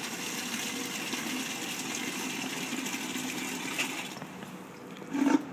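Water draining out of the reflux classifier column as the unit is emptied of its remaining material, a steady rushing pour that dies away about four seconds in. A brief louder sound follows near the end.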